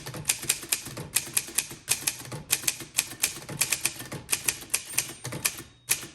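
1954 Voss ST24 manual typewriter being typed on: a quick run of sharp keystroke clicks, about five a second, with brief pauses between bursts.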